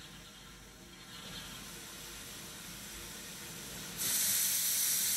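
Steam locomotive venting steam: a steady hiss with a low rumble, then a much louder hiss of steam escaping from beneath the cylinders that starts suddenly about four seconds in.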